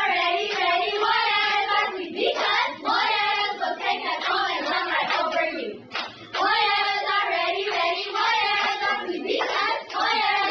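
A squad of young cheerleaders chanting a cheer in unison, the phrases repeating in a steady rhythm, with hand claps.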